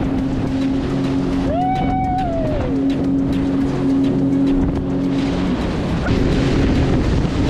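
Jet ski engine running at speed with the rush of water and wind, under background music. A short high call rises and falls about two seconds in.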